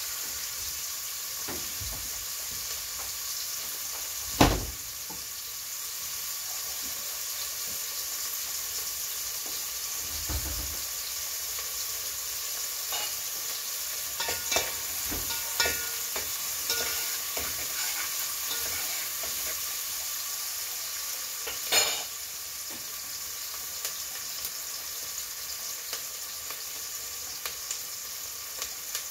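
Food frying with a steady sizzle in an aluminium pot on a gas stove, with light clinks and scrapes as it is stirred. There is a sharp knock about four and a half seconds in and another loud knock about twenty-two seconds in.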